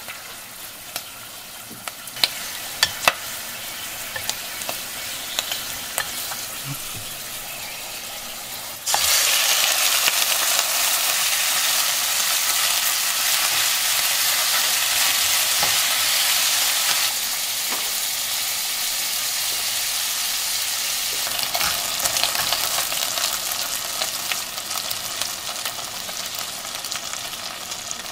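Ginger slices sizzling in sesame oil in a pot, with a few sharp clicks about two to three seconds in. About nine seconds in, the sizzle jumps much louder as pieces of chicken go into the hot oil. The chicken is then stirred and fried, the sizzle easing down a step partway through but staying busy.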